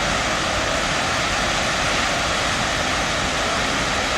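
Chitrakote Falls, a wide waterfall on the Indravati River, rushing with a steady, even roar of falling water.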